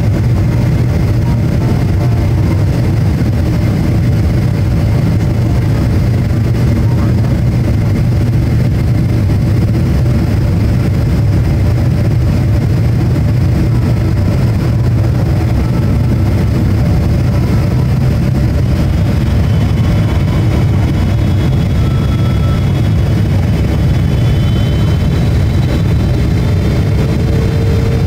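Steady cabin roar of a Boeing 777-300ER on approach, heard from a window seat: the GE90 turbofans and airflow make an even, low-weighted rumble. A faint high whine joins in during the last third.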